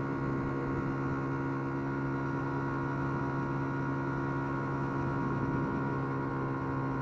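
A 50cc motorcycle engine running at a constant speed while riding: a steady, unchanging drone of one pitch.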